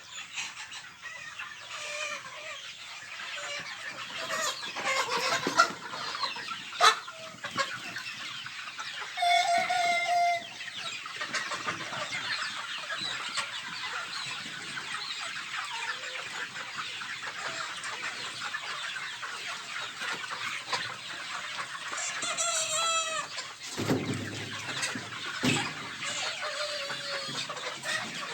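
A large flock of chickens clucking and chattering continuously. A rooster crows twice, about a third of the way in and again near the end, and a couple of dull thumps follow the second crow.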